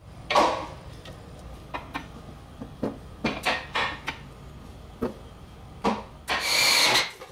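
Stainless steel wheel-folding linkage of a rolling welding table being worked as the casters swing down: a string of sharp clicks and knocks, then a longer scraping rub about six seconds in.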